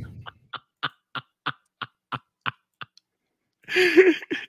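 A man's stifled laughter in short, regular pulses, about three a second, breaking into a louder laugh near the end.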